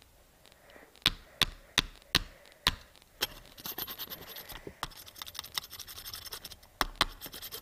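A Nokia flip phone being picked up and handled: about six sharp clicks and knocks over the first three seconds, then a stretch of scratching and rubbing with one more click near the end.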